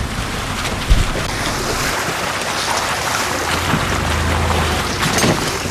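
An SUV towing a small travel trailer rolls slowly through a muddy puddle on a rough dirt road: a steady rushing noise of tyres sloshing through water and mud, with a single knock about a second in.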